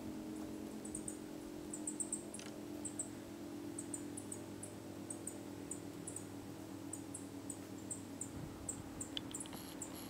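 Federal 2T22 two-tone siren sounding a low, steady chord of several tones, with short high chirps repeating over it.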